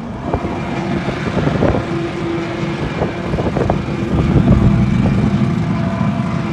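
Drag racing engines running at the starting line of a drag strip, a steady engine note with noise underneath that gets louder about four seconds in.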